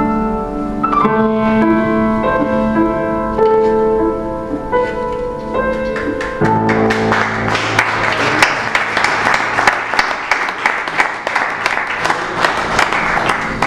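Piano playing a slow run of single notes and chords, ending on a low chord about six and a half seconds in. Then an audience claps for the rest of the time.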